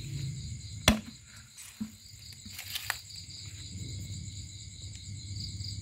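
Steady chorus of crickets and other night insects chirping. A sharp click comes about a second in, with a few fainter clicks and rustles from handling shortly after.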